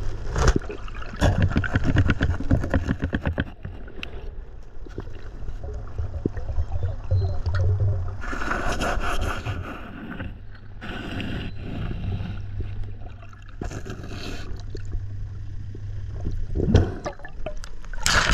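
Muffled underwater sound around the hull: gurgling rushes of bubbles every couple of seconds over a steady low hum. Splashing comes near the end as the camera breaks the surface at the waterline.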